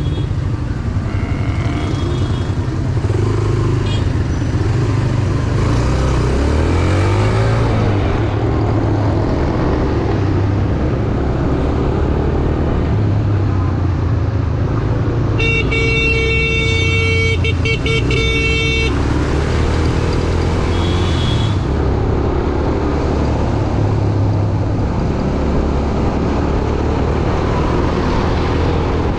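Motorcycle engine running on the move, its pitch rising and falling with the throttle. A vehicle horn sounds one steady honk of about three seconds midway.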